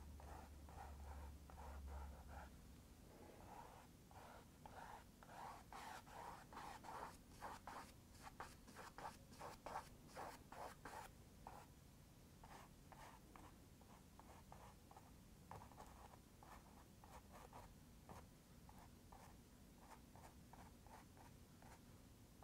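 Paintbrush dabbing and stroking paint onto a canvas: faint, quick, scratchy strokes, busiest around the middle.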